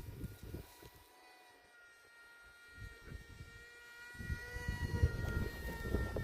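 Small brushless electric motor of a radio-controlled model jet in flight: a thin, steady whine whose pitch drifts slightly up and down. Gusty wind rumbles on the microphone, getting louder about four seconds in.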